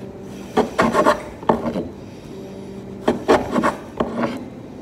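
Kitchen knife sawing through the crusts of stacked sandwich bread against a wooden cutting board, trimming the edges off. The rasping strokes come in four short bursts, at about one, one and a half, three and four seconds in.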